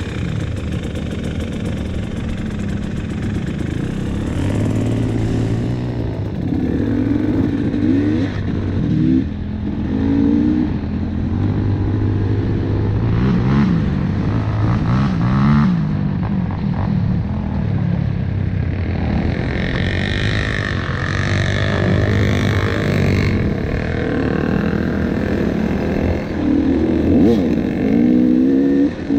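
KTM 300 TPI two-stroke dirt bike engine being ridden off-road, revving up and down over and over as the throttle is worked, with a few brief knocks partway through.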